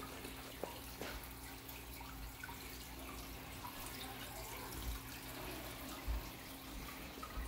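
Water trickling and dripping in a planted aquarium's circulation, over a steady low hum, with scattered small drips.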